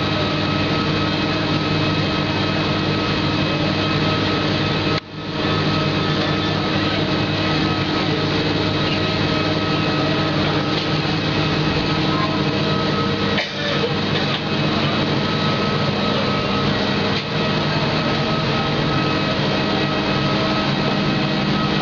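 Steady mechanical drone of an airliner's running machinery at the open boarding door, a constant hum with several fixed tones, briefly cut out about five seconds in.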